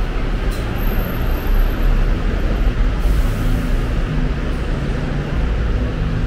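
Steady city street noise: traffic running past with a continuous low rumble.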